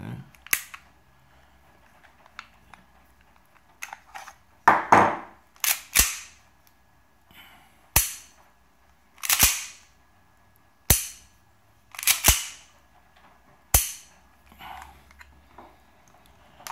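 Sharp metallic snaps and clicks of a 1911-style airsoft pistol being worked by hand and dry-fired, the hammer repeatedly snapping forward onto a homemade firing pin. Each stroke comes about every one to two seconds, some with a short rasp of the slide or hammer being drawn back.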